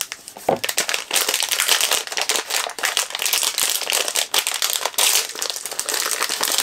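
Crinkly printed wrapper of a blind-box vinyl figure being handled and torn open by hand, with a dense run of crackling and crinkling.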